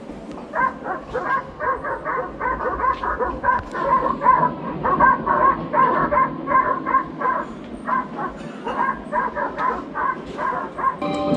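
A dog barking rapidly and without pause, about three barks a second.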